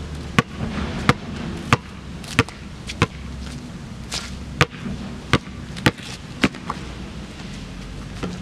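A basketball being dribbled on an asphalt court: about ten sharp bounces at a steady pace of roughly one and a half a second, with a short break about halfway through.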